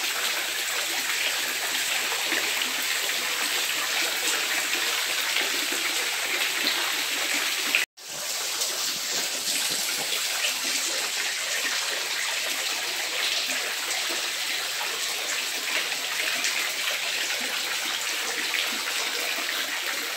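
Steady light rain falling onto a swimming pool, drops splashing on the water surface. The sound cuts out for a split second about eight seconds in, then resumes.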